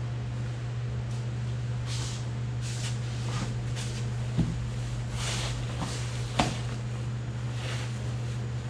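Scattered scraping and rustling of hand work on a truck's transmission and floor jack, with two sharp knocks about four and six seconds in, over a steady low hum.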